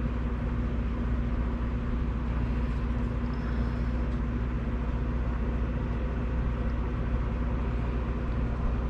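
Steady low hum with a constant drone and even background noise, unchanging throughout; no distinct handling clicks stand out.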